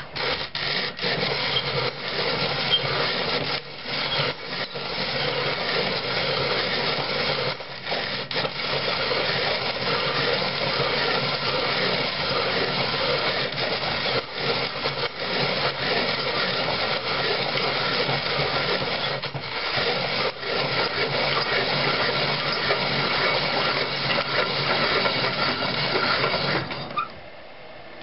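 Antique Arcade No. 3 Crystal cast-iron hand-cranked coffee grinder grinding coffee beans at its finest setting, turning them into espresso-fine powder. Steady grinding with a couple of brief breaks, stopping about a second before the end.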